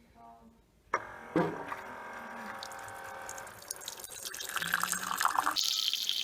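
Keurig K65 single-cup coffee maker on its first brew of plain water. It starts with a sharp click about a second in and hums steadily, then hot water hisses into the cup near the end.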